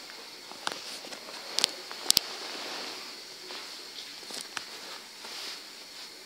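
Close scuffing and sharp taps as a long-haired dog's fur and snout bump against the phone, with a loud double tap about two seconds in.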